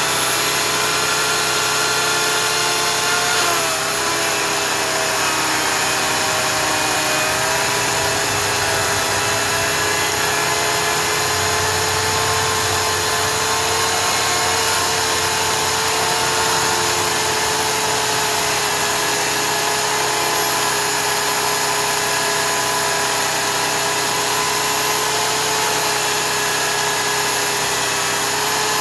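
Oregon CS1500 electric chainsaw running continuously while cutting through a log. Its high motor whine dips in pitch a few times as the chain loads up in the wood, over a steady low hum.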